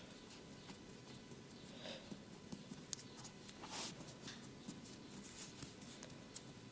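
Faint massage sounds of hands working on skin: scattered soft clicks and taps, with two brief rubbing swishes about two seconds in and near the middle.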